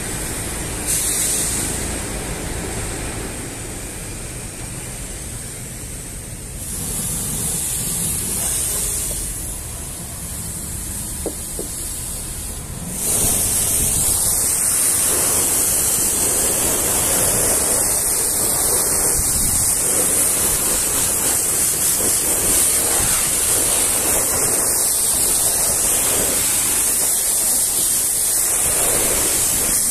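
High-pressure washer jet spraying water, a steady hiss, on and off and quieter at first, then louder and continuous from about 13 s in as the jet rinses soap foam off a truck's windshield.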